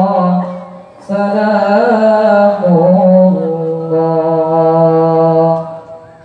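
Male qari reciting the Quran in the melodic tilawah style through a microphone and PA: after a brief breath about a second in, one long held phrase with ornamented turns of pitch, trailing off near the end.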